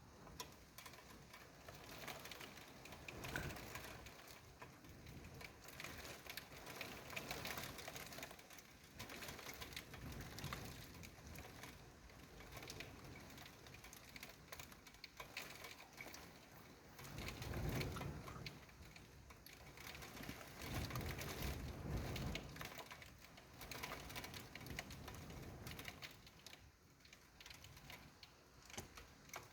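Rain pattering in dense fast ticks, with two brief low swells of sound a little past the middle.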